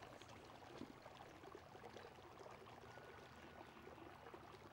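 Faint trickling and gurgling of liquefaction: water and silt welling up out of the ground and spreading, with scattered light ticks.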